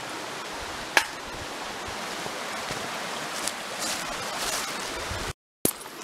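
Brook running steadily, with a single sharp click about a second in and a brief cut-out to silence near the end.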